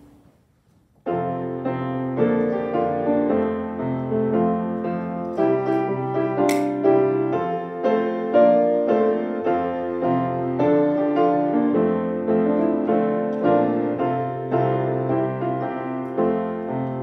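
Piano music begins about a second in: several notes sounding together, in chords that change every second or so.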